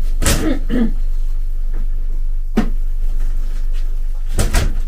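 Scattered knocks and rustles of someone rummaging off-camera, fetching a small jar: a short clatter near the start, a single knock midway and a louder double knock near the end, over a steady low hum.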